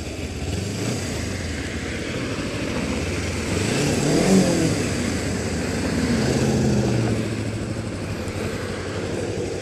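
Kawasaki Ninja 250R's carbureted parallel-twin engine under way, its pitch rising as it revs up about four seconds in, then running steadier.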